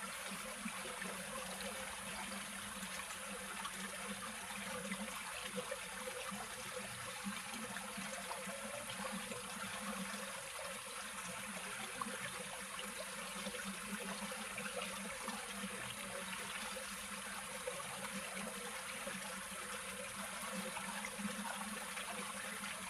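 Water running steadily in a stream, an even trickling flow with a few faint ticks.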